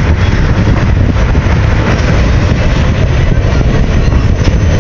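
Empty passenger excursion train rolling past on the rails, a loud steady rumble of wheels and cars.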